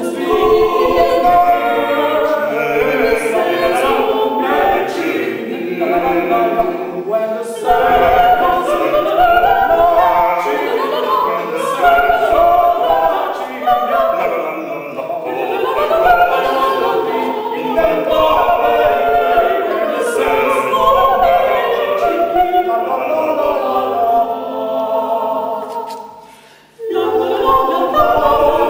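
A five-voice mixed a cappella ensemble, three women and two men, singing in harmony without instruments. The singing drops away briefly near the end and then starts again.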